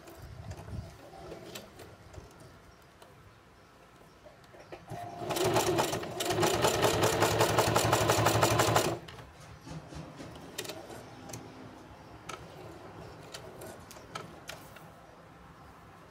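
Singer Heavy Duty 4432 sewing machine stitching through leather at speed: an even, rapid run of stitches starting about five seconds in and stopping about three and a half seconds later. Faint clicks of handling come before and after.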